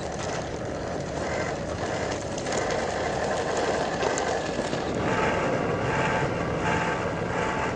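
Traxxas TRX-4 scale RC crawler with a Hobbywing Quicrun Fusion motor driving over loose gravel: a steady grainy crunch of tyres on stones, with a faint motor whine now and then.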